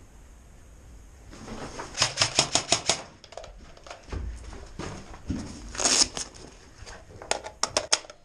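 Two bursts of rapid airsoft gunfire, about seven shots a second: one about two seconds in and a shorter one near the end, with a single louder crack in between.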